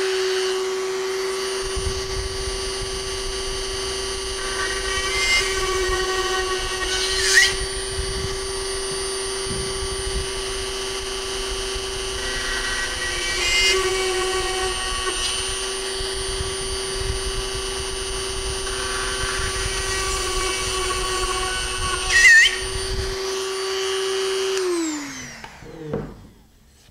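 Corded high-speed rotary tool with a thin drill bit, drilling small shear-pin holes through a fiberglass rocket body tube. Its steady high whine carries on throughout, with two short sharp squeals, and it spins down near the end as it is switched off.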